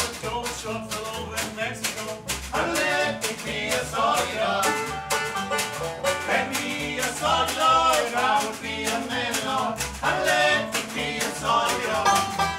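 Live bluegrass music: a banjo picking over an upright bass and a snare drum keeping a steady beat.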